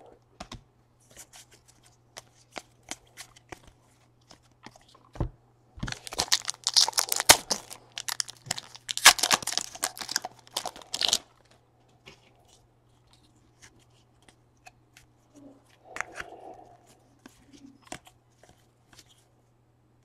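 Foil wrapper of a Panini Elite Draft football card pack being torn open and crinkled, a dense crackle from about six to eleven seconds in. Scattered light clicks of cards being handled come before and after it.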